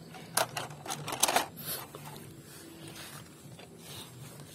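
Toy truck set down into a green plastic basket of toy cars, the toys knocking and clattering together in a few sharp clicks over the first second and a half.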